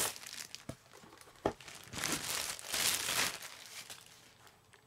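Packaging crinkling and rustling as the jump starter is pulled out and unwrapped, in several bursts, with a couple of light knocks in the first second and a half.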